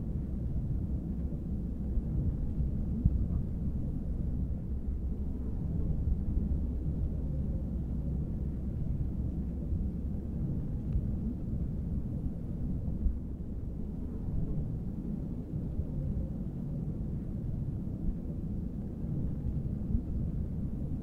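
Outdoor wind rumble: a steady low rumbling haze that rises and falls slightly, with no distinct events.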